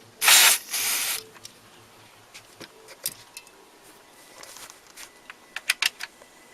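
Two short hissing sprays from a spray can, one right after the other, followed by a few small clicks of parts being handled near the end.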